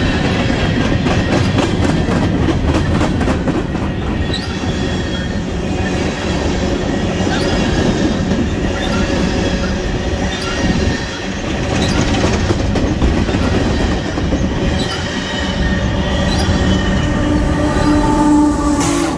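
Union Pacific empty coal train rolling past: the cars rumble over the rail with clicking wheels at the rail joints and short, faint wheel squeals. Near the end a locomotive comes by and adds steady tones.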